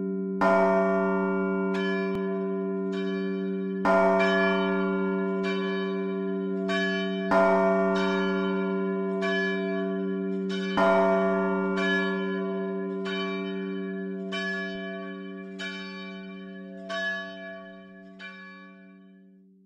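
Church bells ringing before the service. A heavy stroke comes about every three and a half seconds, lighter strokes fall between them, and a low hum carries on underneath. The ringing fades away near the end.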